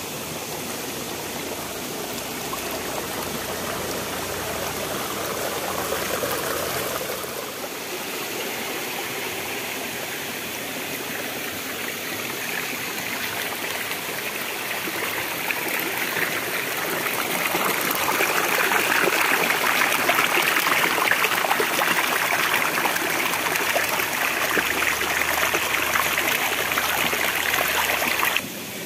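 Shallow rocky stream rushing and splashing over stones in small cascades, close to the microphone. It grows louder in the second half and drops off suddenly near the end.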